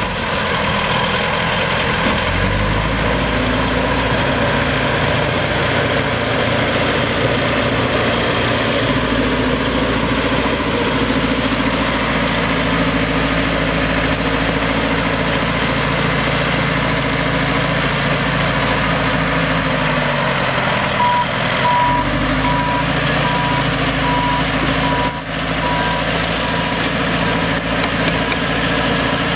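Caterpillar D5H crawler dozer's diesel engine running hard as it pushes dirt, its note dipping briefly and picking up again about two-thirds through. A backup alarm beeps for a few seconds near that point.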